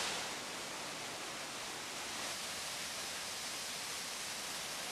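Merced River rushing steadily over whitewater rapids.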